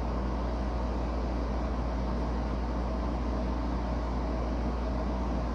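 A steady low hum with an even hiss, unchanging throughout, with no other sounds.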